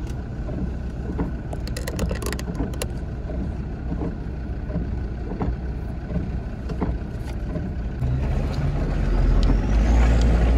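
An off-road 4x4's engine heard from inside its cabin, running over a rough wet track with scattered knocks and rattles. About eight seconds in, the engine drone grows louder as it pulls harder.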